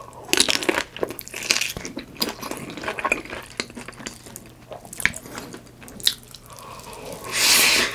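Close-miked eating sounds: wet, sticky food stirred and chewed, with clicks of utensils and a louder burst of noise near the end, over a steady low hum.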